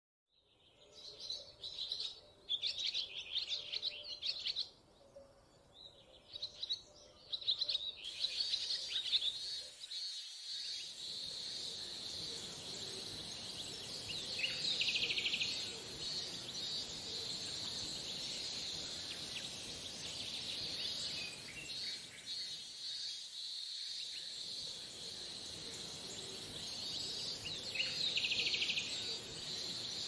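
Cicadas droning in a steady summer chorus, swelling briefly twice, with bursts of chirping calls through the first several seconds.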